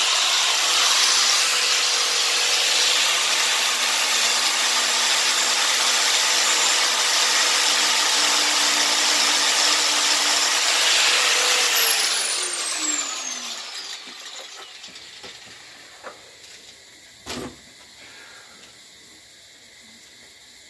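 Handheld electric angle grinder running against a metal pressure-washer nozzle tip held in a vise, grinding it down with a steady high whine. About twelve seconds in the grinder is switched off and its whine falls in pitch as it spins down. A single click comes near the end.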